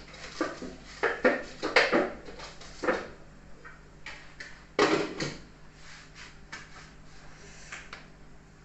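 Knocks and clatters of kitchen things being handled: a quick run of them in the first three seconds, one louder knock about five seconds in, then only faint small sounds.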